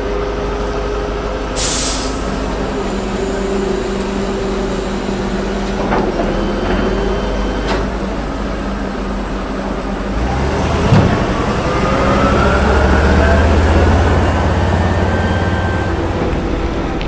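Large military amphibious bridging vehicle's engine running, with a short air-brake hiss about two seconds in. From about ten seconds a thump is followed by the engine revving up in rising tones as the vehicle pulls away.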